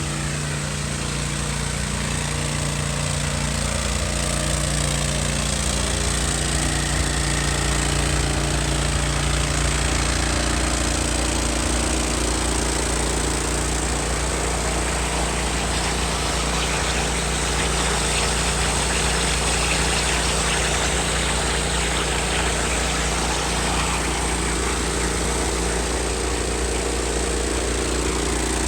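A hot-water pressure washer's 27 hp Kohler V-twin engine running steadily, driving the high-pressure pump, with a steady rushing hiss over the engine note. The engine note thickens about twelve seconds in.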